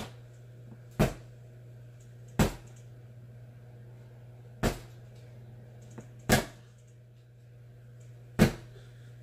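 A child beating a toy action figure against something: five sharp thwacks, each a short smack, spaced irregularly about one and a half to two seconds apart, over a steady low hum.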